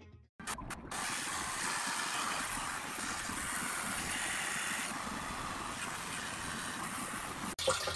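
Water from a garden-hose spray gun pouring into the top opening of a plastic fresh water tank, filling it: a steady rush that starts about a second in after a few clicks and cuts off shortly before the end.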